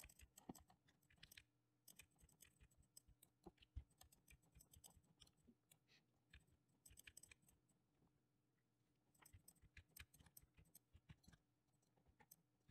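Near silence with faint, scattered clicks of a computer mouse and keyboard as bones are grabbed and moved, one slightly louder click about four seconds in.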